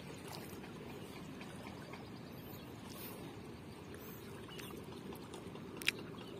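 Steady rush of flowing river water, with a few faint ticks and one sharp click near the end.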